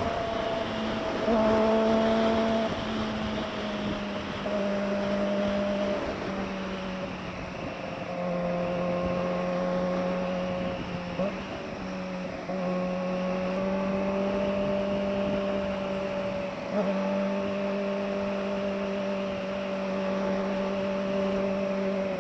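Kawasaki ZX-25R's 249 cc inline-four running through an SC-Project underbelly slash-cut muffler, holding a fairly steady high-revving note that steps slightly up and down a few times.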